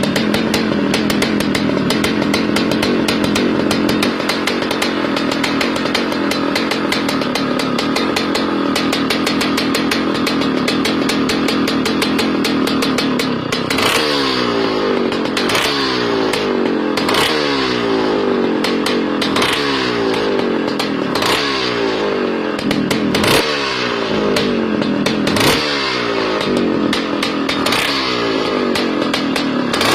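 Royal Enfield Meteor 350 motorcycle with a modified exhaust idling with a fast, even thump. About halfway through it is blipped over and over, roughly every one and a half to two seconds, each rev dropping quickly back to idle.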